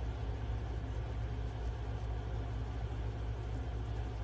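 A steady low rumble with an even hiss over it.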